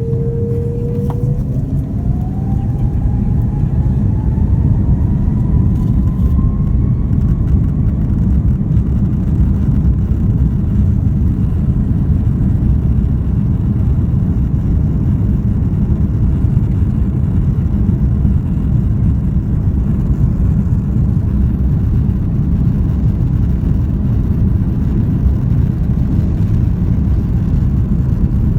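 Jet airliner's engines spooling up to takeoff thrust, heard from inside the cabin: a whine climbs over the first several seconds and then holds, under a loud, steady rumble of the takeoff roll.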